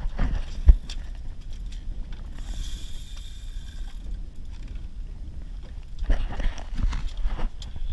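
Wind rumbling on the microphone aboard a small boat, with knocks, clicks and scrapes of a spinning rod and reel being worked against a hooked fish. A sharp knock comes less than a second in, a brief high hiss around three seconds in, and a cluster of clicks and scrapes near the end.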